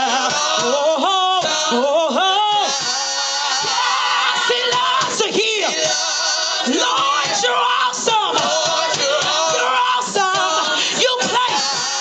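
Gospel praise team singing, male and female voices with wavering vibrato, loud and unbroken.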